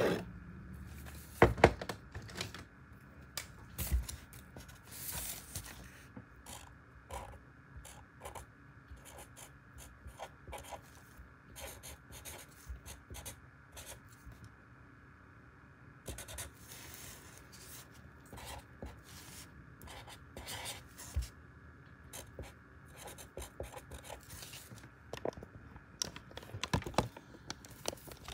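Pen scratching on notebook paper in many short, irregular strokes while writing a list, with a couple of louder knocks from handling early on.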